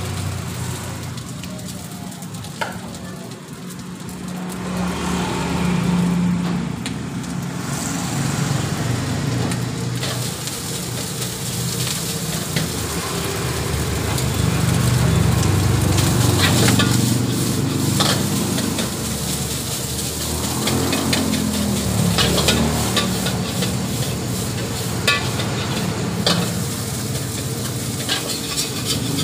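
Rice frying and sizzling in a steel wok, with the wok burner's steady low rumble underneath. From about halfway on, the metal ladle clanks and scrapes against the wok as the rice is stirred and tossed.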